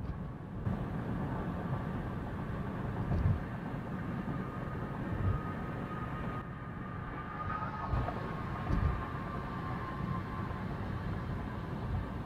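Steady road and tyre noise from inside a moving car, picked up by a dashcam, with a few low thumps.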